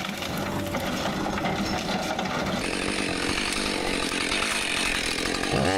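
A motorized saw cutting through wood, a steady rough buzz that grows brighter about halfway through, with an engine note sliding in pitch right at the end.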